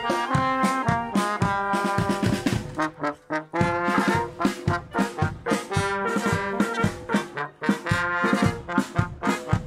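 Wind band of brass and woodwind instruments (trumpets, low brass, flutes) playing a tune together with a steady beat.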